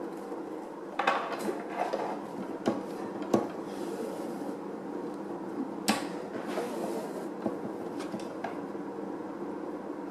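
Hands handling a car air purifier and its headrest strap: scattered clicks and knocks, with a couple of brief rustling swishes, over a steady low hum.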